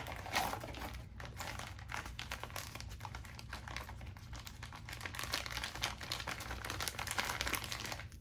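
Crinkling and rustling of blind-box toy packaging being unwrapped by hand: a dense run of small crackles from the wrapper as the figure is taken out.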